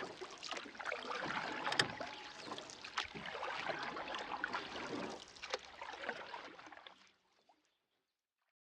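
Water splashing and lapping in a dense run of small, irregular splashes that stops abruptly about seven seconds in.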